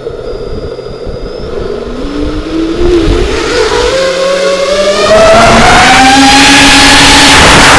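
FPV racing quadcopter's ZMX brushless motors and propellers whining. The whine is steady at first, then rises in pitch and grows louder as the throttle is pushed up.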